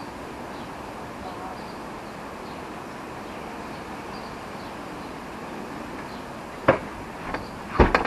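Garden ambience: a steady background hiss with faint, scattered high bird chirps. Near the end come a few sharp, loud knocks.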